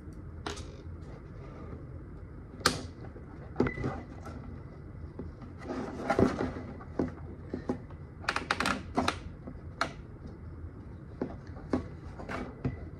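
Scattered clicks, taps and scraping of a 3D-printed plastic helmet faceplate being handled and moved by hand. There is a busier stretch of rattling a little past the middle.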